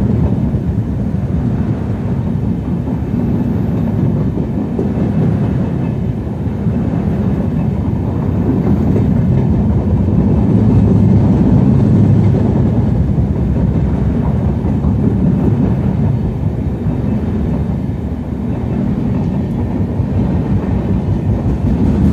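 Passenger express coaches rolling past at close range, a steady rumble of wheels on rail that swells a little around the middle, the train gathering speed after leaving a station.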